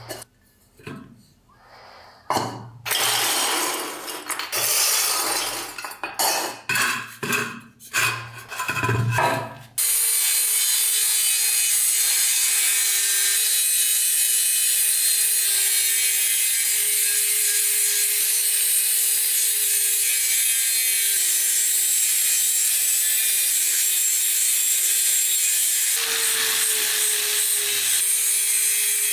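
Metal lamp parts handled on a workbench, with short scrapes and clunks. About ten seconds in, an angle grinder with an abrasive disc starts grinding the lamp's metal base: a loud, steady, hissing grind over the motor's steady hum.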